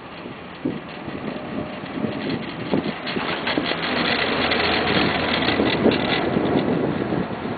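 1996 Poma Italia detachable quad chairlift running on the line: a rumble with rapid clattering that builds to a peak about halfway through and then eases, typical of the chair's grip rolling over the sheave wheels of a line tower. Wind on the microphone.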